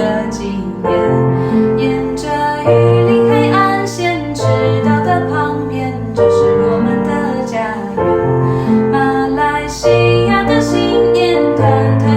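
Chinese New Year song: a woman singing a gentle melody over piano accompaniment.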